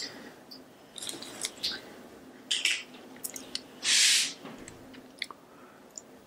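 Small plastic sauce cups and their clear lids being handled: scattered light clicks and crinkles of thin plastic, with one short, sharp hiss about four seconds in.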